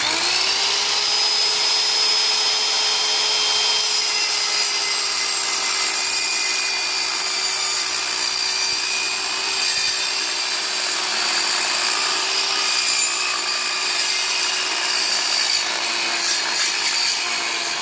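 Evolution EVOSAW180HD 7-1/4-inch circular saw, fitted with a steel-cutting blade, cutting through a wooden plank. A steady motor whine runs under the noise of the blade in the wood, without a break.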